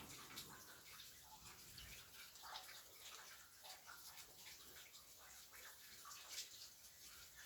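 Rain falling during a summer storm: a faint, steady patter with scattered louder drops.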